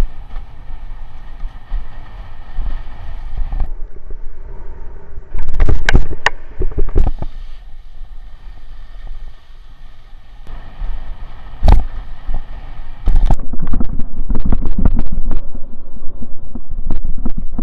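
Wind buffeting the microphone of a camera on a windsurf rig, with the board slapping and crashing through choppy waves. Loud crashes come about 6 seconds in, again near 12 seconds, and then come thick and fast from about 13 seconds on as the rider goes down.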